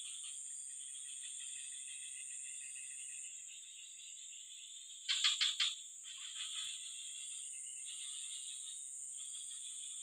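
Outdoor insect chorus: a steady high-pitched buzz with a pulsing trill beneath it. About halfway a frog gives a short, louder call of four or five rapid croaks.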